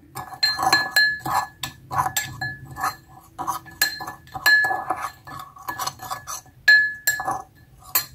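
Metal teaspoon clinking and scraping against a ceramic bowl while stirring a dry spice mix, in quick irregular strikes, each with a short ringing tone.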